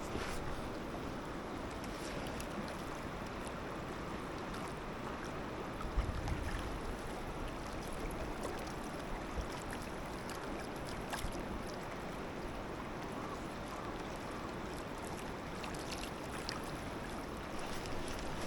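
Steady rush of river water flowing over rocks, with a few faint clicks and a brief low thump about six seconds in.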